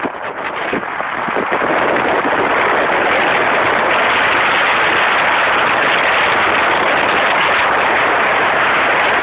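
A motorboat powered by a Volvo Penta 700 70 hp outboard runs at speed, heard as a dense, steady roar of wind battering the microphone over the engine and hull. The roar grows louder about a second in and then holds steady.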